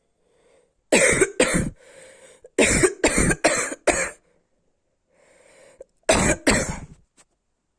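A sick woman coughing in three bouts: two coughs, then a run of four, then two more, with breaths drawn in between the bouts.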